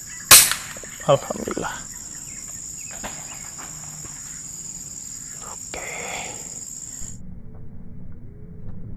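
A single sharp air rifle shot. A steady, high-pitched insect drone runs behind it and cuts off suddenly near the end.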